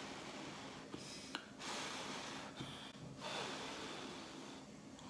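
A person blowing on hot ramen noodles held up on chopsticks to cool them: three long puffs of breath with short pauses between, and a small click about a second in.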